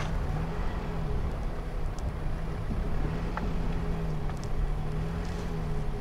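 Car driving slowly over a snowy dirt track: a steady engine hum with a low rumble of tyres.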